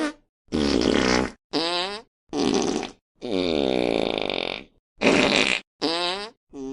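Fart sound effects in quick succession: about six separate farts, each half a second to a second long with short gaps between them. The longest one, in the middle, runs about a second and a half, its pitch sagging and coming back up.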